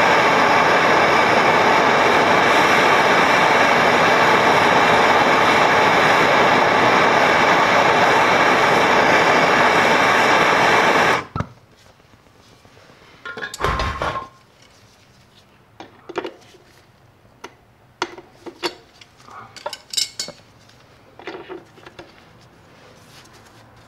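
Handheld blowtorch burning with a loud, steady hiss as it heats a seized chain adjuster bolt. The torch cuts off suddenly about eleven seconds in. Scattered metallic clicks and knocks of channel-lock pliers on the bolt follow.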